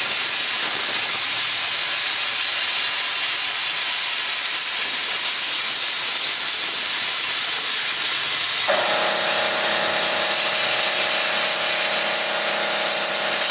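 Plasma cutter cutting aluminium sheet, a steady loud hiss of the air jet and arc. About two-thirds through, a steady hum of several tones joins in.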